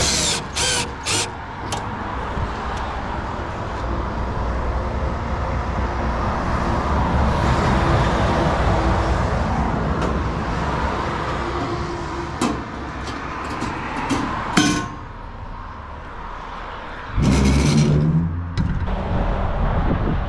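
A few short bursts of a cordless drill driving screws into the sheet-metal gate. Then a road vehicle passes on the street, its noise swelling and fading over several seconds. A couple of sharp knocks and a loud metallic clatter follow near the end.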